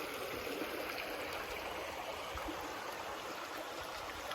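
Creek water flowing steadily, an even rush of running water.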